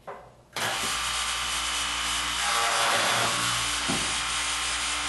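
GANNOMAT DB21 multi-spindle dowel boring machine starting abruptly about half a second in and running steadily with a low hum, its drill spindles face-boring a wooden cabinet side panel. The noise grows a little louder around the middle.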